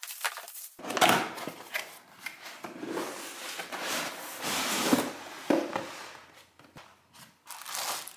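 Unboxing noises: a cardboard box being handled and opened, with rustling and scraping of cardboard and plastic wrap and light knocks, then a plastic bag crinkling as an item is lifted from a plastic tray near the end.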